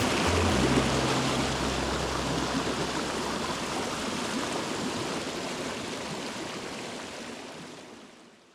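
Mountain stream rushing over rocks, a steady hiss of water that fades out to silence near the end. Low background-music notes sound under it for the first couple of seconds.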